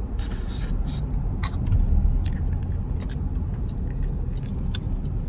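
Steady low rumble of a moving car heard from inside the cabin, with scattered short clicks and crackles close by.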